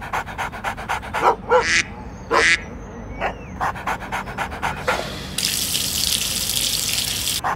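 Dog sniffing in a few short noisy puffs, then a steady hissing trickle of a dog urinating for about two seconds near the end.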